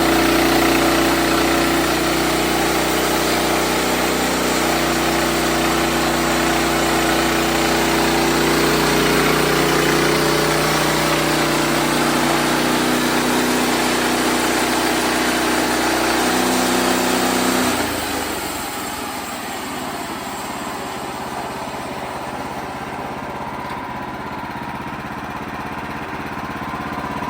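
Wood-Mizer LX55 bandsaw sawmill running steadily as it saws through a poplar log. About 18 seconds in the sound drops, and the machine carries on running more quietly.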